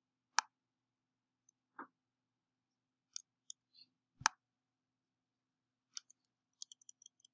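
Scattered sharp clicks of a computer mouse being used at a desk, the loudest about four seconds in, with a quick run of small ticks near the end, over a faint steady hum.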